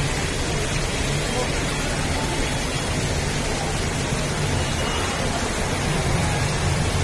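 Heavy rain falling steadily into standing floodwater: a loud, even hiss with no breaks.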